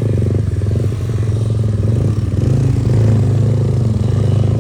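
Motorcycle engine running hard under load while the bike is stuck among loose rocks on an off-road track; it gets a little louder around the middle.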